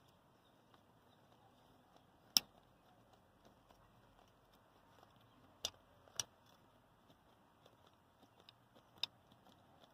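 Handling noise from a small air compressor's motor and pump parts being turned by hand: four sharp clicks or taps, the first the loudest, over a quiet background.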